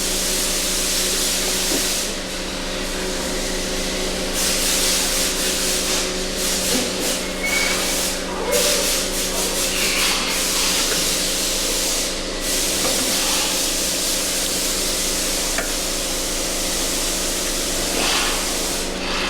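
Steady workshop hiss with a low hum, and stretches of rubbing and scraping in the middle, as the boot clamp is worked with pliers.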